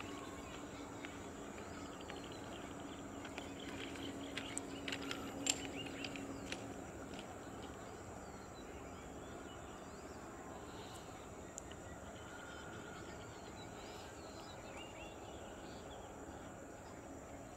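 Quiet outdoor ambience: several short bird chirps a few seconds in, over a faint steady high hiss and a low hum that fades out about six seconds in. The approaching train is not clearly heard.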